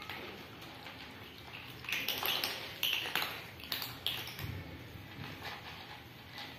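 Several cats crunching dry kibble from a plastic feeding tray: irregular crisp clicks and crunches as pellets are chewed and knocked about, busiest in the middle.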